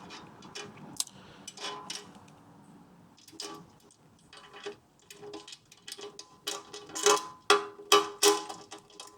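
Metal hardware and tools clicking and clinking in a run of sharp, ringing ticks as a spacer is worked into a motorcycle toolbox bracket. The clicks come sparsely at first and grow louder and closer together near the end.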